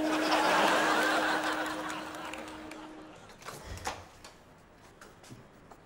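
Keyboard music sting: a held low synth note fades out over about three seconds under a hissing, shimmering swell. Then near-quiet room tone with a few faint knocks.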